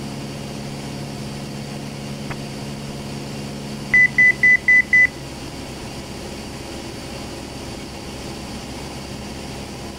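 Steady drone of a light airplane's engine and propeller heard inside the cockpit through the intercom, with a quick run of five short, high electronic beeps about four seconds in.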